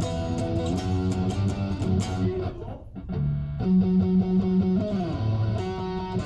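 Fender Thinline Telecaster electric guitar playing chords, with a short drop-off just before halfway before the chords come back in. About five seconds in, the notes slide down in pitch.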